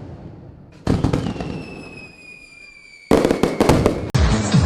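Consumer fireworks cake (Dragon Fireworks 'Viking Warriors', 16 shots) firing. A bang about a second in is followed by a whistle that falls slightly in pitch, and a second bang about three seconds in brings dense crackling. Near the end the fireworks cut off and music begins.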